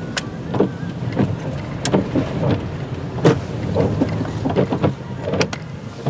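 Car interior noise from a car rolling slowly in snow: a steady low engine and road rumble, with repeated short clicks and knocks on top.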